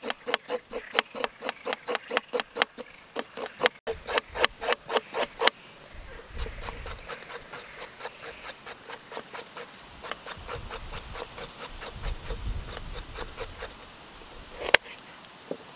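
Knife blade scraping shreds off a raw carrot against a wooden cutting board, in quick even strokes about four a second. The strokes turn softer after about five seconds, and one sharper knock comes near the end.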